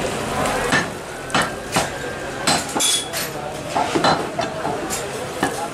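Cleaver chopping meat on a wooden log chopping block: a string of sharp chops, irregularly spaced, some about half a second apart, with a brief metallic clink near the middle.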